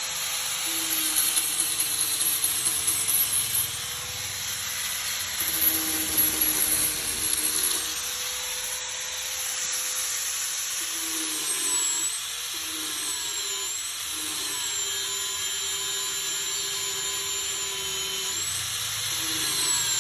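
A small power tool running in bursts of several seconds each over a steady mechanical hum.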